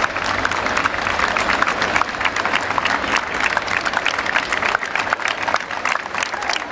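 Crowd applauding: many people clapping hands in a steady, dense patter.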